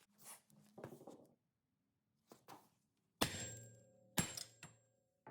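Hammer blows on a steel hub removal tool fixed to a rust-seized rear wheel hub. A few light knocks come first, then two sharp metallic strikes about a second apart, each ringing and fading.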